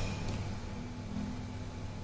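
Low steady electronic hum from a USS Enterprise toy replica's sound effects, with a faint held tone coming in shortly after the start.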